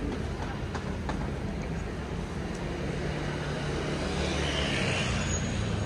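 Street traffic: a motor vehicle's engine running close by over a steady urban background, swelling slightly near the end.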